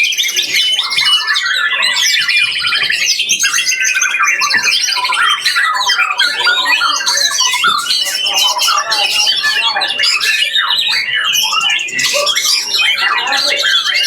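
Caged songbirds singing together, a dense, unbroken stream of rapid chattering phrases and fast buzzy trills.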